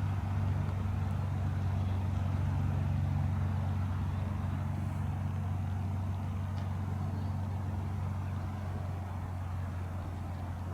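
Hawker Hurricane's Rolls-Royce Merlin V12 engine running steadily at low power, a deep even drone that slowly eases in level.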